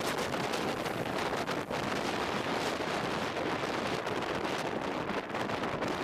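Steady rushing wind buffeting the microphone, flickering slightly in strength.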